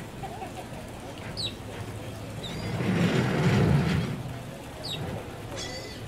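Two short high falling bird chirps, about a second and a half in and again near five seconds, over a steady low murmur of outdoor background noise that swells in the middle.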